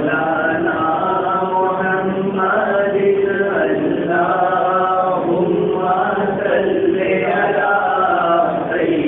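A man singing an Urdu naat unaccompanied into a handheld microphone, in long held melodic lines with no instruments.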